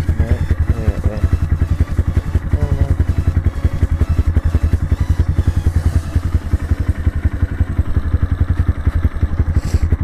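Dirt bike engine running at low revs, with an even, rapid beat of exhaust pulses as the bike rolls slowly along.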